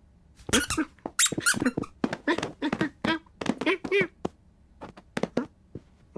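Cartoon cat's vocal chirps, squeaks and grunts, voiced by a person, come in a quick run of short calls while it chases a laser dot. Quick foley thumps and scrabbles of pouncing and landing are mixed in, and the run thins out to a few short clicks and knocks in the last two seconds.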